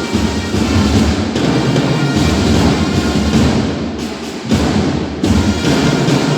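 Music with drums and percussion, dipping briefly a little past the middle before picking up again.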